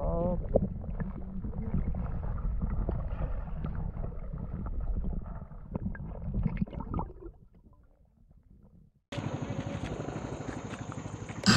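Muffled underwater noise from a camera held in river water: a low rumble of moving water with scattered clicks, fading out about seven seconds in. About nine seconds in, a steady hiss with a fast, even pulsing starts abruptly.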